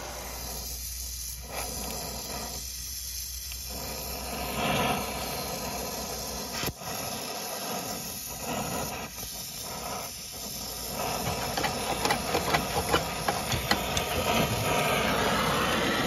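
Oxy-acetylene brazing torch flame hissing steadily as it heats a copper braze joint to unsweat a refrigerant service valve, with sharp crackles and pops in the later part.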